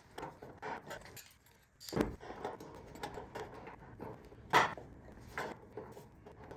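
Light metal clinks and taps as a round sheet-steel patch is handled and set into the fuel-filler hole in a 1967 Chevy C10 cab panel, test-fitting it for contour. There is a sharper knock about two seconds in and another about four and a half seconds in.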